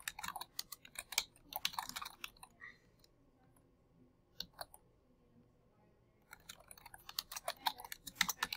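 Typing on a computer keyboard: quick runs of key clicks in the first three seconds and again from about six seconds on, with a few scattered keystrokes and a short pause between.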